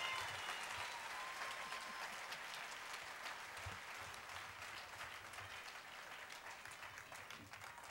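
Concert audience applauding a band-member introduction, the clapping slowly dying away.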